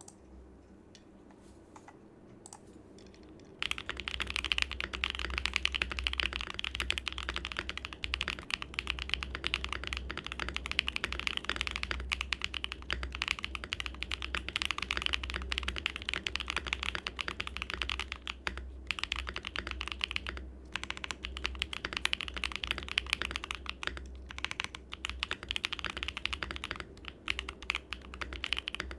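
Continuous fast typing on a MODE Sonnet mechanical keyboard with BSUN Hutt tactile switches and GMK keycaps. It starts about three and a half seconds in, with a few brief pauses.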